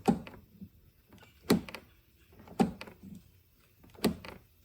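Jeep Cherokee XJ passenger-door lock mechanism and linkage rod being worked back and forth by hand: four sharp clacks, each with a short thud, about a second or so apart. The lock now moves after the rod was bent for more length but is still a little hard to work.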